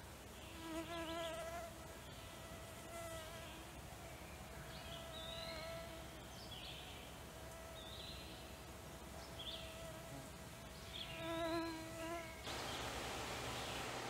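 Mosquito whining in flight close by, its wavering pitch swelling and fading, loudest twice: about a second in and again near the end. Short high bird calls sound faintly behind it, and near the end a steady outdoor hiss takes over.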